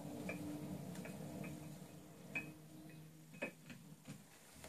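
Faint, irregular light clicking from a small metal lathe's chuck and gearing as it is turned, over a low hum that fades out about three seconds in.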